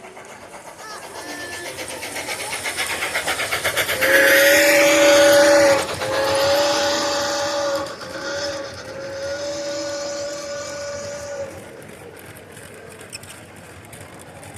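A LEGO model train runs close past, its wheels clicking rapidly over the track joints, louder as it nears. A two-note train horn then sounds in the long, long, short, long grade-crossing pattern before the train fades away.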